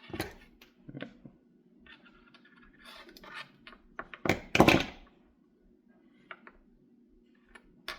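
Small tools and wire being handled on a desk: scattered clicks and scrapes, with a louder clatter of knocks about halfway through, over a faint steady hum.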